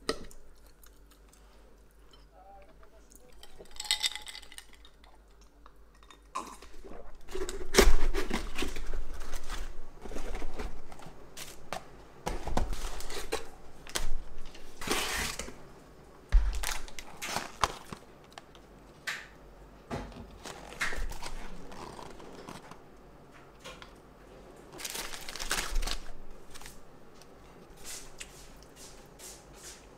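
Plastic carrier bag and cardboard takeout boxes rustling and crinkling as a delivery order is unpacked, with sharp knocks of containers and boxes set down on a table. The handling is busiest after the first few seconds.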